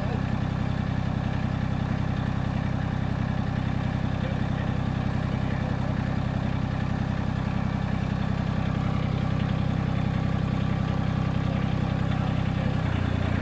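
Massey Ferguson GC1710 sub-compact tractor's diesel engine running steadily at constant speed while its backhoe is worked.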